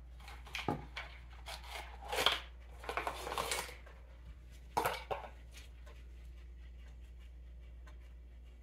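Metal parts of a Ford 8N tractor carburetor clicking and rattling as the two halves are fitted together by hand: a few separate clicks and short rattles, mostly in the first half.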